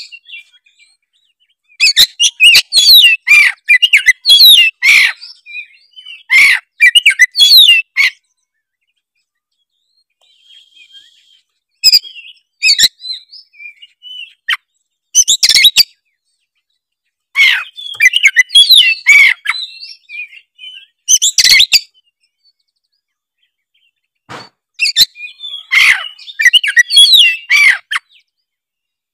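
Oriental magpie-robin (kacer) singing loudly in bursts of rapid, varied whistled and chattering notes, the phrases broken by pauses of a second or more.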